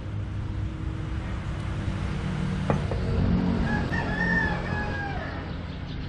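A rooster crowing once, a single drawn-out cock-a-doodle-doo lasting about two seconds, starting about halfway through, over a steady low rumble. A sharp knock comes just before the crow.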